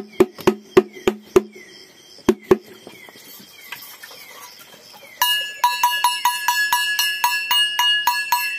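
Quick even knocking, about four to five knocks a second, quieter through the middle. About five seconds in, it turns into loud metallic clanking at the same pace, each strike ringing like a bell.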